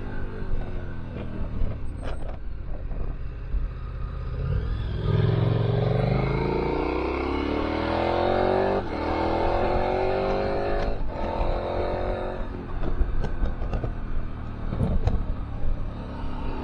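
KTM 1290 Super Adventure R's V-twin engine running under way with a low wind rumble on the camera microphone. About a third of the way in the engine pulls harder, its pitch rising for several seconds, then it eases off again.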